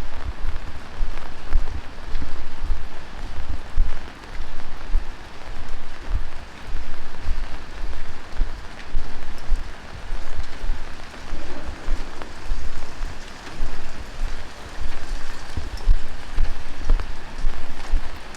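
Heavy rain falling steadily, with an even hiss of drops on pavement and surfaces and dull low thumps that swell and fade about once a second.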